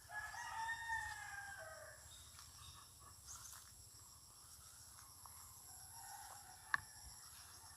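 A rooster crows at the start, one call of about two seconds that falls slightly in pitch at the end, and a fainter crow follows near the end. Insects keep up a steady high-pitched trill behind it, with one sharp click about two-thirds of the way in.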